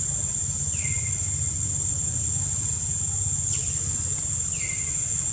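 Steady high-pitched insect drone, like crickets or cicadas, over a low rumble, with short falling chirps about a second in and again near the end.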